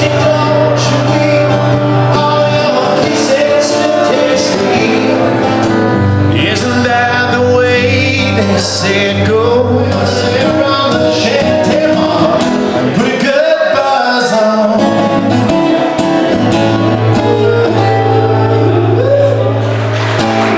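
A man singing to his own acoustic guitar accompaniment.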